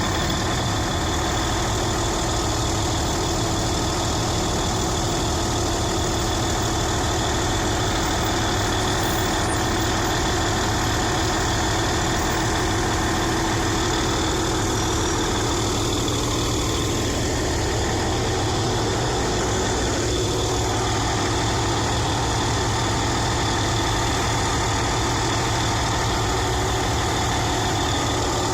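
Heavy diesel engine running steadily at a low, even speed.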